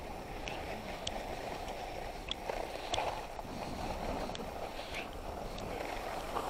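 Skis sliding over groomed snow at speed, a steady rushing hiss with scattered light clicks.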